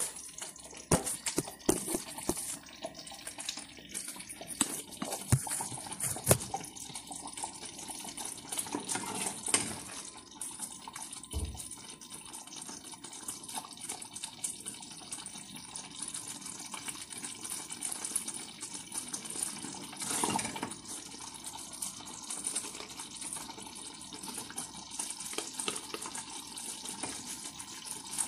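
Kitchen sounds: a steady watery hiss with frequent small clicks and a few louder knocks.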